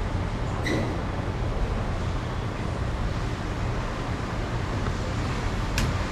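Steady low rumble and hiss of background noise, with a light click about a second in and a sharp tick near the end.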